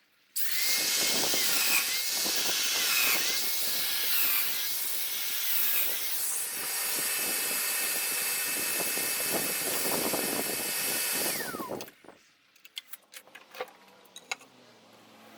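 Electric woodworking power tool cutting into wood: the motor whine dips in pitch several times under load in the first few seconds, then runs steady. It switches off with a falling whine as it spins down, followed by a few faint knocks and clicks.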